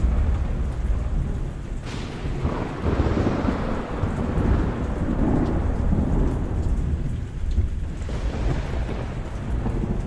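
Steady rain with a continuous low rolling rumble of thunder that swells louder from a few seconds in and then eases.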